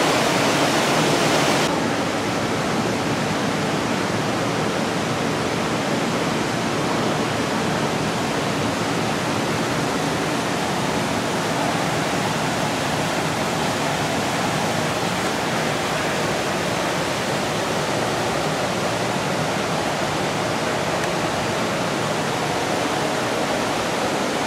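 Steady rushing noise with no distinct events. The hiss in the upper range drops about two seconds in.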